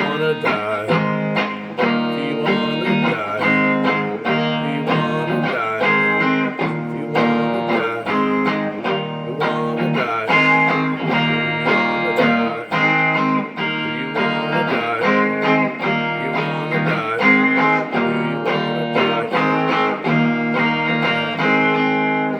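Instrumental guitar music from a song, with plucked and strummed guitar playing a steady rhythm and no singing.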